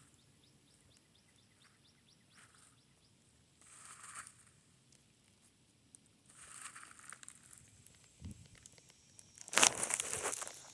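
Rustling and crinkling handling noises in short bursts, with the loudest burst about a second before the end.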